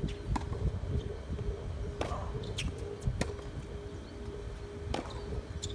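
Tennis ball being struck by rackets and bouncing on a hard court during a rally: a few sharp pops, one to two seconds apart, over a low rumble.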